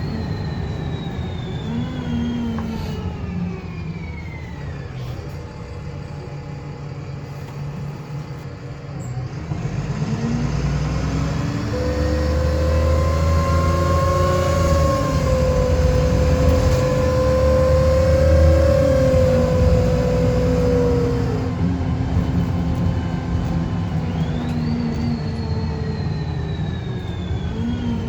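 VDL SB200 bus with Wright Commander body on the move, with its distinctive high whirring whine. The whine falls in pitch over the first few seconds; then the diesel engine pulls harder, climbing in pitch with a couple of steps like gear changes under a loud steady whine; near the end the high whine rises sharply again and starts to fall.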